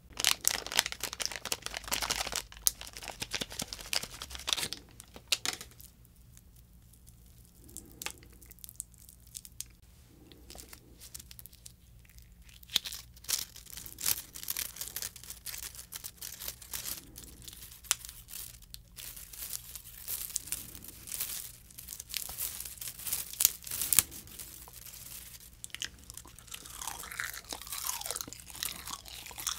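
Edible tape being bitten, torn and chewed: many short, crisp crackles and crinkles, with a quieter stretch of softer chewing from about six to twelve seconds in.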